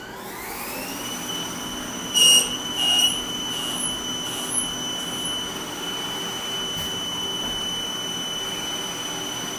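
Haas ST-20 CNC lathe spindle speeding up with a rising whine that settles into a steady high whine. About two and three seconds in come two brief loud bursts as the cutting tool bites into the spinning bar stock.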